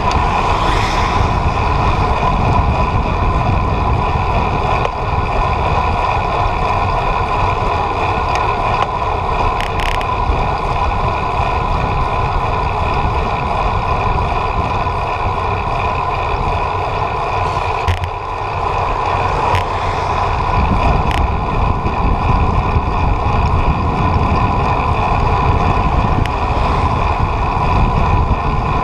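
Steady drone of a moving vehicle ridden at speed, with a constant whine and heavy wind rumble on the microphone. The sound eases briefly about two-thirds of the way through.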